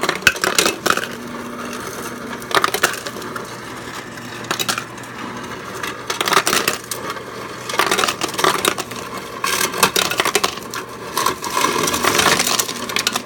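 Refrigerator door ice dispenser running, its motor humming while ice clatters and rattles into a bowl in repeated bursts.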